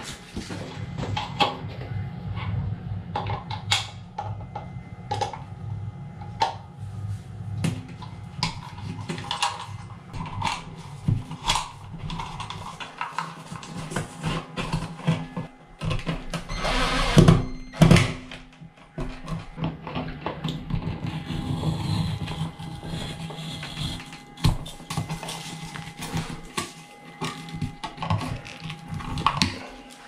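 Electrical work noises: a steel fish tape and cable rattling and scraping as the cable is pulled through the wall, with many clicks and knocks. About 17 seconds in, the loudest sound: two short runs of a cordless drill driving the clamp screws of a plastic old-work electrical box.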